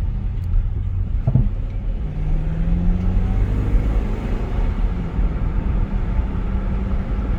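Jeep Grand Cherokee's Hemi V8, rear resonators cut out, running while driving and held in a lower gear by sport mode. The engine note rises for a second or so about two seconds in, and there is a brief clunk a little over a second in.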